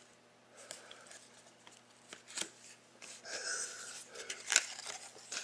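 Trading cards being handled and slid against one another: faint light ticks at first, then louder rustling with a few sharp clicks from about three seconds in.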